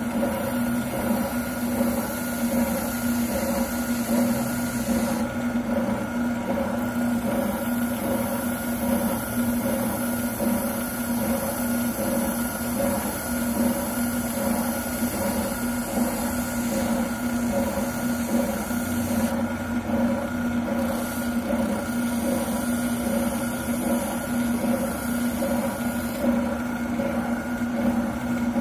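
Wilton oscillating sander running steadily with a constant hum while a plastic shotgun buttplate is sanded down on it. A higher hiss over the hum drops away briefly a few times.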